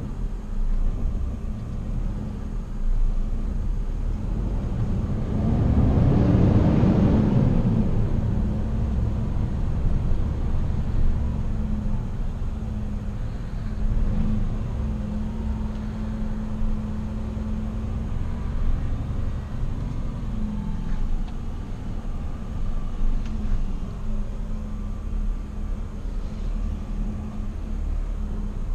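Volvo FL city truck's diesel engine running at low speed, heard from inside the cab with a steady low hum. It swells louder for a couple of seconds about six seconds in, then settles back.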